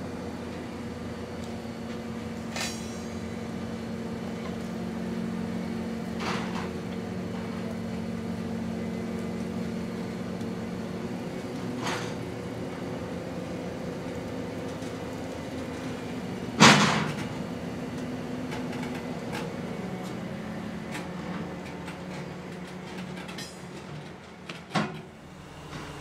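Mobile crane's diesel engine running steadily under load while it holds a suspended locomotive body, with a few sharp knocks; the loudest knock comes about two-thirds of the way through.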